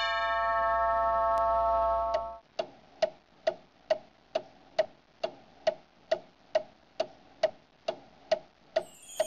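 A held musical chord of several steady notes, ending about two seconds in, then a clock ticking evenly, a little over two ticks a second.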